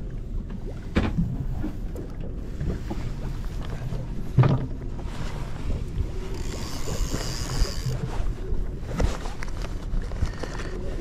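Wind on the microphone over a steady low rumble aboard a small boat at sea. There is one knock about four seconds in and a high hiss lasting a second or two past the middle.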